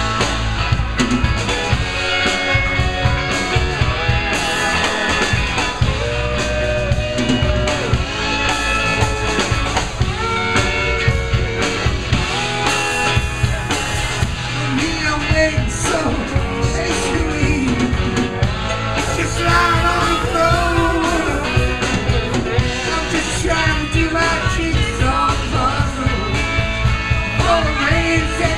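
Live rock band playing: electric guitars, bass and drum kit, with a male singer singing over them.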